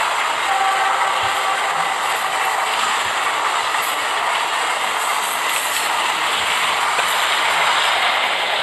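Train running along its track: a steady, even rattling rush.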